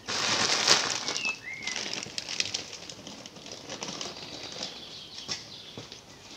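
Rustling and crinkling of a bag of ballast being picked up and set into a small model coracle. It starts suddenly and is loudest in the first two seconds, then fades to lighter handling noises. A bird chirps twice about a second in.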